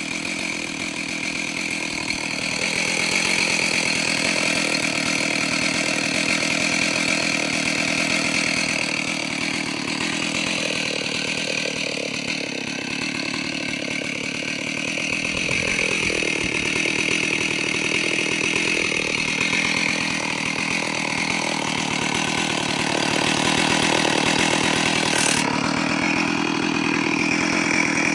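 Stihl 038 Farm Boss two-stroke chainsaw idling steadily.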